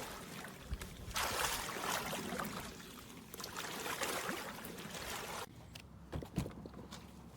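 Water sloshing and splashing in an uneven wash, with a few short knocks, the sharpest about six seconds in.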